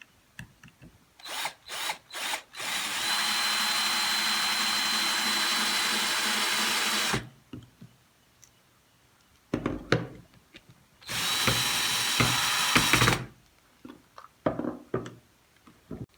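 Handheld power drill running in two steady spells of a few seconds each with a constant high whine, each preceded by short trigger blips. Light clicks and knocks of handling follow near the end.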